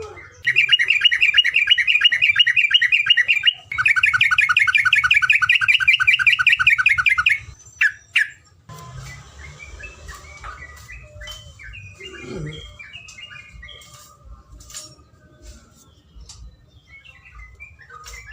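A terocok songbird singing two long, loud, very rapid trills of fast-repeated notes, the long 'ropelan' roll that bird-keepers prize, then a short sharp note and softer scattered chirps.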